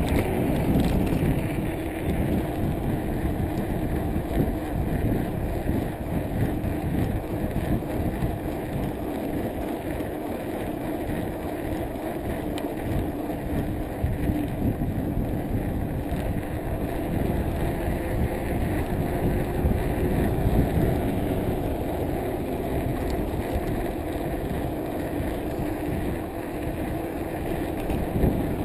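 Steady rush of wind noise on the microphone mixed with tyre rumble from a bicycle coasting fast down an asphalt road.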